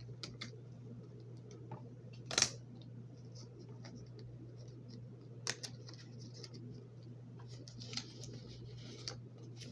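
Paper and tape being handled while taping paper around a pencil: faint rustling with a few short, sharp snips or tears, the loudest about two and a half seconds in, over a steady low hum.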